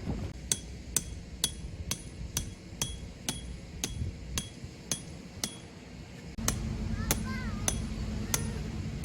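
Tent peg being hammered in: sharp ringing metal strikes about two a second. About six seconds in, a steady low hum starts up, and a few short chirps are heard near the end.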